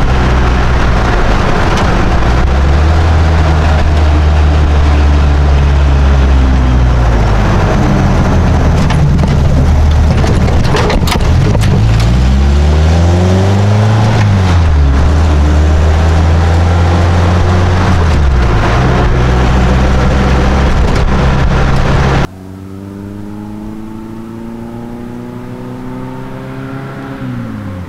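Ford Model A coupe hot rod's engine running under way, loud from inside the cab, its pitch climbing and falling back about halfway through. Then, heard from the roadside, the same car approaching, its engine rising in pitch as it speeds up, with a drop in pitch near the end.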